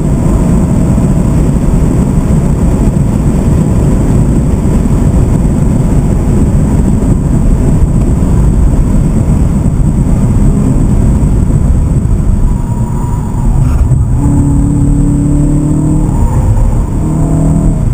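BMW M3 E92's V8 engine heard from inside the cabin at speed on track, mixed with heavy road and wind noise. From about thirteen seconds in, a clearer, steady engine note comes through as the car runs into a bend.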